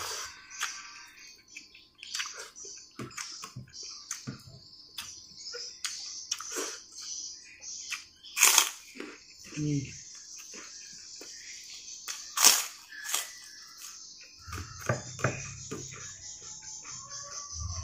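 Close-up eating sounds as a man eats rice with clear vegetable soup and omelette by hand: wet chewing and lip smacking with many short sharp mouth clicks, two louder ones about halfway. A steady high hiss runs underneath from a few seconds in.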